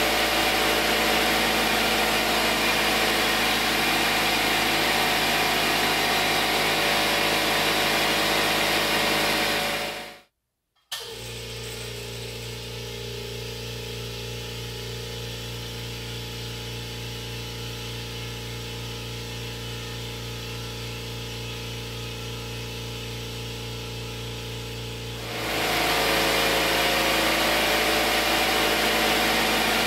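A Porter-Cable 6-gallon pancake air compressor running loudly, until a brief cut to silence about ten seconds in. A Kobalt Quiet Tech 26-gallon air compressor then runs with a steady low hum, much quieter. Near the end the Porter-Cable's louder running returns.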